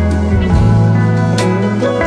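Background instrumental music with a sustained bass line and changing melody notes, and a sharp percussive accent about one and a half seconds in.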